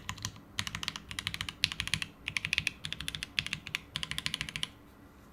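Typing on a plateless 7V by gok mechanical keyboard with lubed and filmed H1 switches and CRP R4 keycaps: quick runs of key clacks in bursts with short pauses, stopping shortly before the end.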